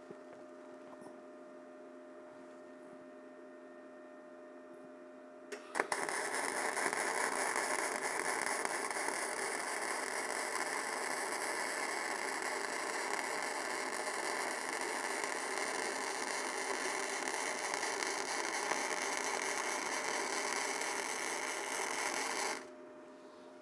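Self-shielded flux-cored wire-feed welding arc, struck sharply about six seconds in and running steadily for about sixteen seconds before it stops abruptly near the end. Before the arc there is only a steady hum.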